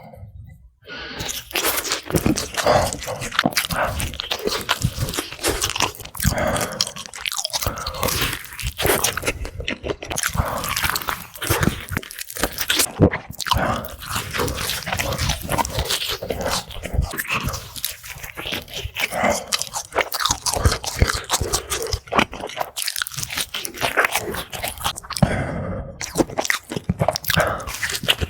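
Close-miked eating of crispy fried chicken: crunching bites into the fried coating and chewing, a fast, continuous crackle.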